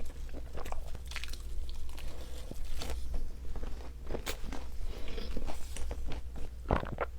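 Close-miked biting and chewing of pizza, with irregular crunches and mouth clicks and a few louder bites.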